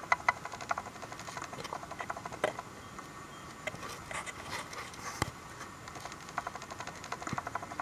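Quick, irregular light clicks and taps with a few sharper knocks on a plastic kayak out on the water.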